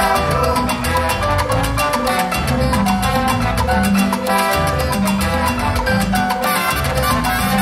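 Cuban-style salsa music playing loud and unbroken, with a busy percussion beat over a bass line and melodic parts.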